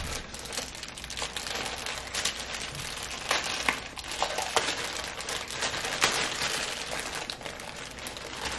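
Clear plastic bag wrapping crinkling and rustling as it is handled and opened by hand, with many small sharp crackles throughout.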